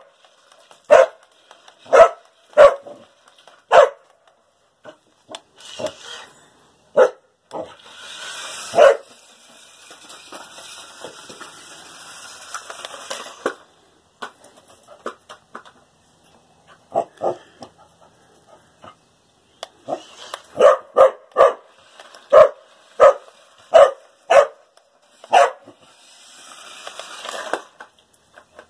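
A dog barking sharply and repeatedly at a remote-control stunt car, in bursts, with a quick run of barks about two-thirds of the way through. For several seconds in the middle, between barks, the RC car's electric motor whirs steadily as it drives over concrete.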